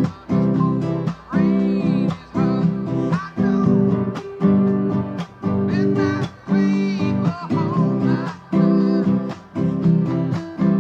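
Acoustic guitar strummed in a steady rhythm. A higher melody line glides over the chords at times.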